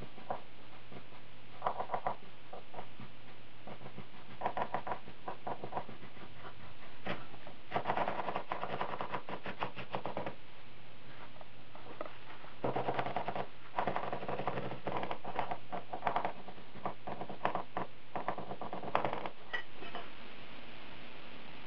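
A cleaver chopping fast on a wooden cutting board in a series of quick bursts with short pauses between them, shredding raw pork and then napa cabbage.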